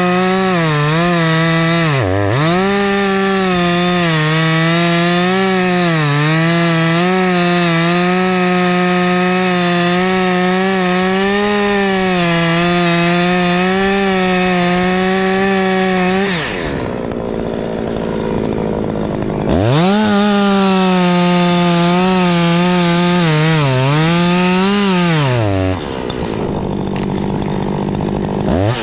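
Two-stroke chainsaw at full throttle cutting wood, its pitch sagging and wavering as the chain bites. About halfway through it drops to idle for a few seconds, revs back up for another cut, idles again and revs up once more at the very end.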